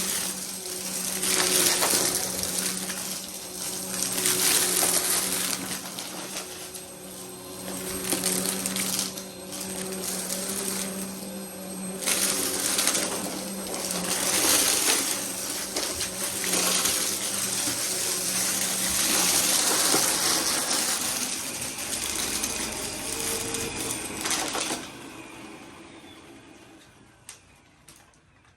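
Vacuum cleaner running while it is pushed back and forth quickly, its suction noise swelling and easing about every two seconds over a steady motor hum. It is switched off about 25 seconds in and winds down.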